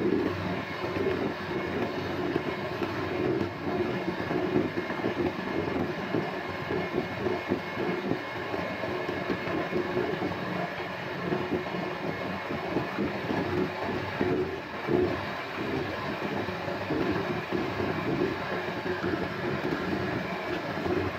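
Electric hand mixer running steadily at constant speed, its twin wire beaters churning thin cake batter in a plastic bowl.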